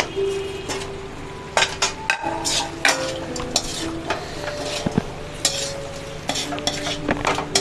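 Fried chicken pieces stirred and tossed in a sizzling sauce in a steel wok, a metal slotted spatula scraping and clinking against the pan over and over.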